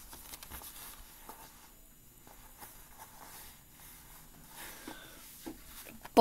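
Faint rustling with a few light clicks and taps, the sound of a person shifting and turning close to a computer microphone.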